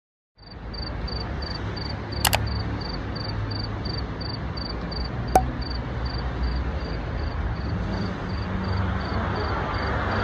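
Outdoor night ambience: a steady background noise with a low rumble, over which a cricket chirps at an even pace of about three chirps a second. Two sharp clicks stand out, one about two seconds in and one about five seconds in.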